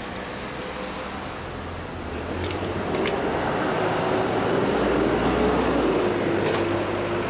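Motorcycle engine idling, growing louder about two seconds in, with a few light clicks and jingles around then.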